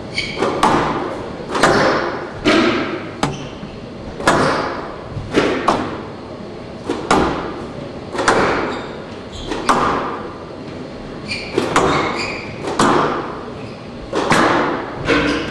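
Squash rally: the ball is struck by racquets and smacks off the walls, sharp hits about once a second, each ringing in a large hall. A few short high squeaks come near the start and around eleven seconds in.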